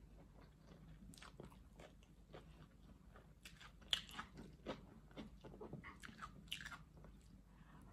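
Quiet chewing of fried plantain and fried egg with tomatoes: soft, irregular wet mouth clicks and smacks, with a sharper click about four seconds in.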